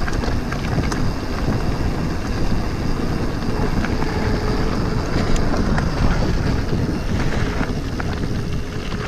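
Wind rushing over the camera microphone at speed, with mountain-bike tyres rumbling over a gravel track and occasional clicks and rattles from the bike.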